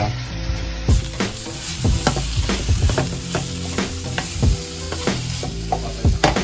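Eggplant and shredded pork sizzling in a nonstick frying pan as a wooden spatula stirs and tosses them, with short knocks of the spatula against the pan about once or twice a second.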